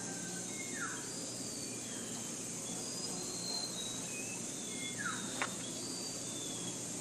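Steady high-pitched insect drone from crickets or similar insects, with scattered short bird chirps over it, including two quick downward-sweeping calls about a second in and about five seconds in. A single sharp click comes just after the second sweep.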